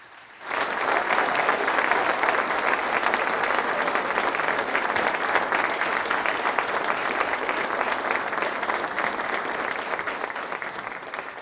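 Audience applauding. The clapping starts about half a second in and holds steady, easing a little near the end.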